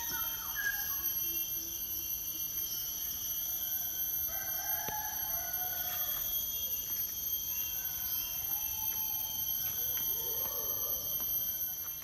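A rooster crowing in the distance, once about four seconds in and again a few seconds later. Under it runs a steady high-pitched drone of jungle insects.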